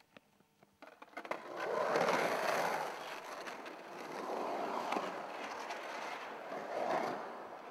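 Skateboard wheels rolling on the concrete of a large full pipe. A few light clicks come first, then about a second in a loud rolling sound starts and swells and fades with each carve up and down the wall.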